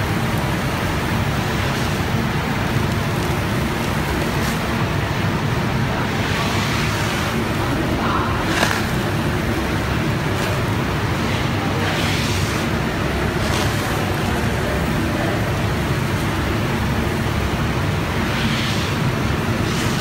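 Steady machinery noise from a running feed-processing line: a continuous mechanical drone with a low hum, broken by a few brief clicks.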